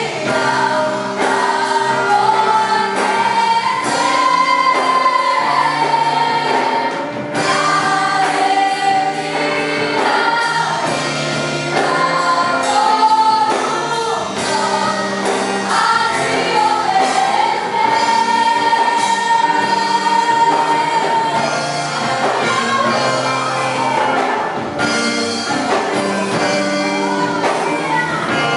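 Live gospel worship song: a choir of voices singing a sustained melody over a band.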